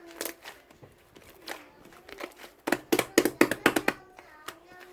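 A quick run of about ten sharp taps, preceded by a few scattered single taps.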